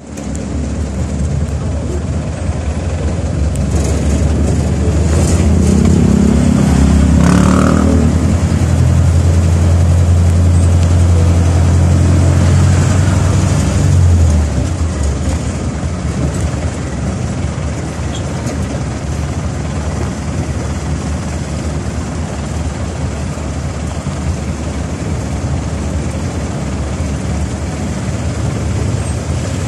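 Vehicle engine running with a low, steady drone, heard from inside the cab while creeping along in slow traffic; it grows louder over the first few seconds and eases off about halfway through.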